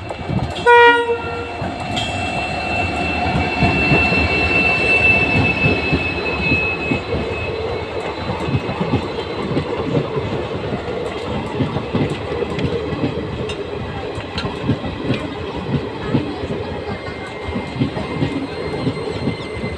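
Passenger train arriving at a station: a short horn blast about a second in, then the coaches rolling past with a steady rhythmic clatter of wheels over the rail joints. A thin high squeal sinks slightly in pitch over the first few seconds.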